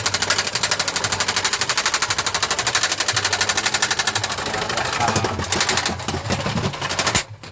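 A fast, even rattling clatter of sharp strikes, about a dozen a second, that thins out about five seconds in and cuts off suddenly near the end.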